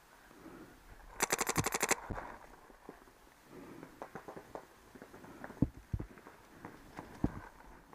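Paintball marker firing a rapid string of about a dozen shots in under a second, about a second in. A few scattered sharp single knocks follow later.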